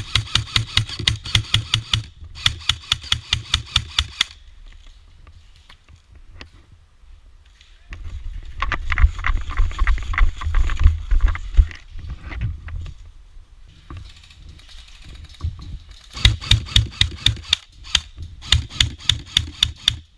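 Airsoft gun firing quick shots, about seven a second, in two long strings, one at the start and one near the end. In between come a low rumble and rustling from the player running.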